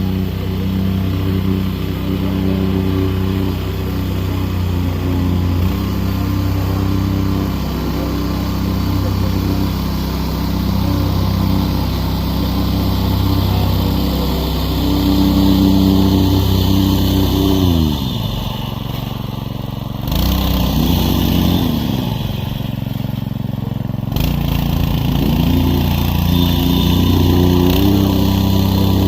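Small gasoline engine running steadily, slowing down about two-thirds of the way through and picking back up near the end.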